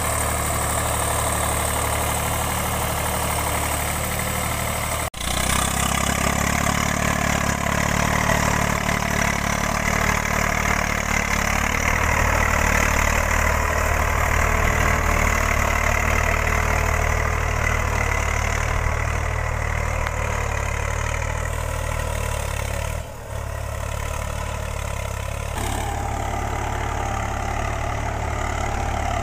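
Eicher 485 tractor's three-cylinder diesel engine running steadily under load while pulling a tine cultivator through the soil. The sound drops out briefly twice, about five seconds in and again near the three-quarter mark.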